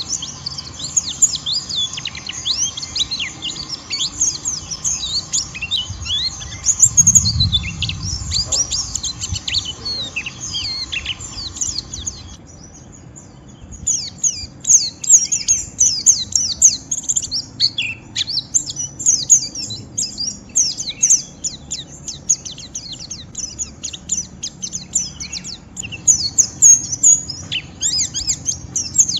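White-eyes (pleci) in a rough, rapid twittering song (ngeriwik): dense, quick, high chirps, many sliding downward. A low rumble comes about seven seconds in, and the sound cuts out for about a second and a half near the middle before the twittering starts again.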